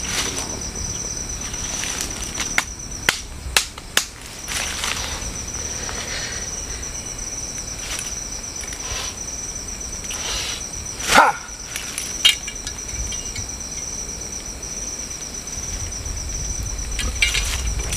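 Night crickets trilling steadily in a high, pulsing chirr. Several sharp knocks and some rustling in dry leaf litter come over it: a quick cluster in the first few seconds, the loudest strike about eleven seconds in.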